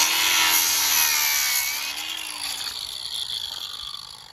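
DeWalt cordless angle grinder with a cut-off disc cutting through a steel lock: a loud, hissing metal-grinding whine with a steady motor hum under it, fading over the last two seconds as the cut finishes.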